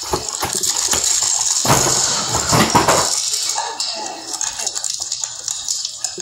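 A cardboard box being knocked over and crushed: a dense crackling, crunching clatter, loudest about two to three seconds in, then thinning out.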